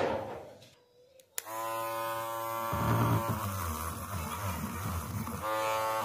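Small handheld electric rotary tool with a brass wire wheel brush, switched on with a click about a second and a half in. It then runs with a steady electric buzzing whine that changes a little around the middle and shifts in pitch near the end.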